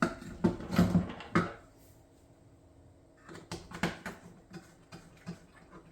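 Handling of metal marker parts and tools on a workbench: a series of sharp knocks and clicks in two short clusters, with quiet between.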